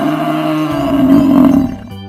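Cow mooing in one long, steady low call that stops near the end, over background music.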